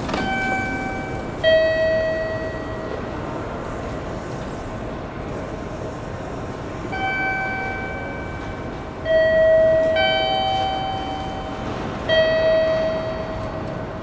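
A two-tone chime rings three times, each time a higher note followed by a lower one, and each note fades out. Steady rail background noise runs underneath.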